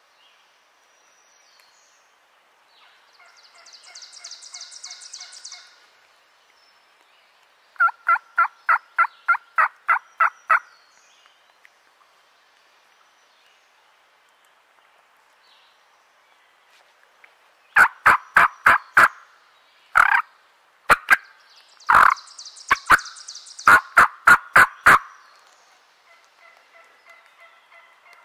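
Wild turkey gobbling, more faintly than the loud, sharp runs of turkey yelps that come a few seconds later and again near the end. A second gobble breaks in among the later yelps.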